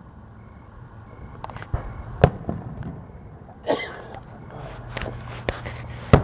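Aerial fireworks going off: a string of sharp bangs at irregular intervals, several a few seconds apart, the loudest near the end.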